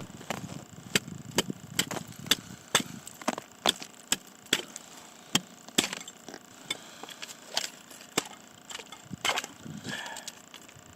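Footsteps crunching on snow-covered lake ice, an even walking pace of about two steps a second.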